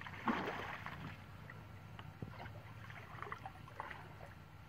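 Shallow water splashing and sloshing as people wade and drag a fine-mesh fishing net through it by hand. There is a louder splash just after the start, then a string of smaller splashes.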